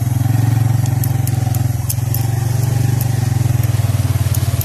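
Motorcycle engine running steadily under way on a rough dirt track, its rapid exhaust pulses even throughout, with a few faint light clicks.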